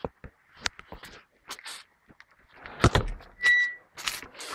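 Scattered knocks and clunks, loudest about three seconds in, with a short high squeak about half a second later.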